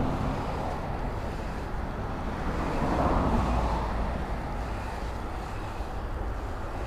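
Road traffic: a steady rumble of cars driving past, with one car swelling louder and fading about three seconds in.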